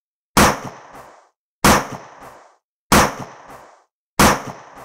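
Four gunshots, evenly spaced about a second and a quarter apart. Each rings out briefly and is followed by a fainter click.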